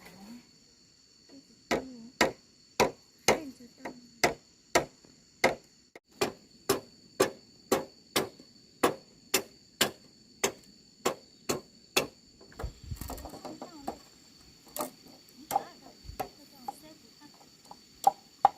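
Sharp, regular blows of a hand tool, about two a second in a steady rhythm, breaking off about two-thirds of the way through and then returning more sparsely. A steady high-pitched drone runs underneath.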